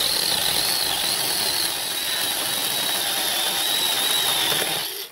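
F.Easy.D cordless electric pruning chainsaw cutting into a standing tree trunk: a steady high motor whine over the rasp of the chain through the wood, cutting off just before the end.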